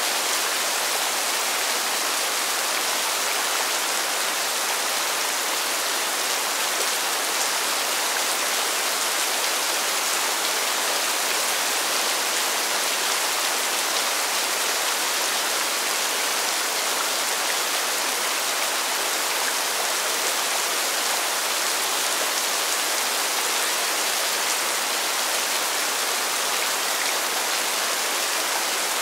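Steady rain falling on pavement, an even hiss that does not change.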